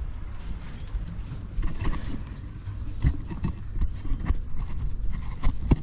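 Irregular knocks, scuffs and clicks of handling and moving about, over a low steady rumble, with one sharp click near the end.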